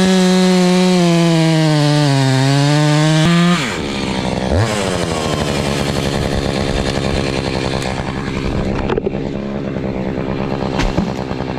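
Two-stroke chainsaw running at full throttle in a cut, its pitch sagging under load; about three and a half seconds in the throttle is released, it revs briefly once, then settles into a steady idle.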